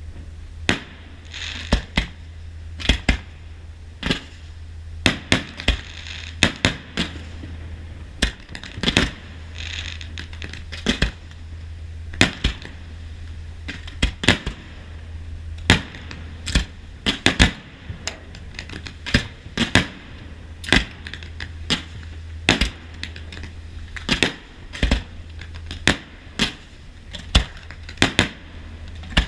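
Aerial fireworks display bursting: a long, irregular series of sharp bangs, often one to three a second, over a steady low hum.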